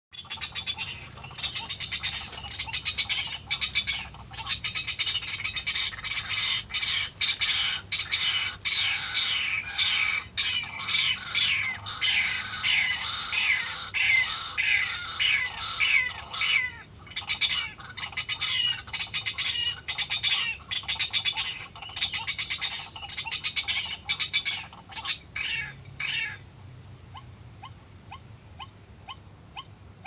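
White-breasted waterhen calling: a dense, continuous run of loud repeated calls with falling notes. It cuts off suddenly about 26 seconds in, leaving a fainter, even series of short notes about twice a second.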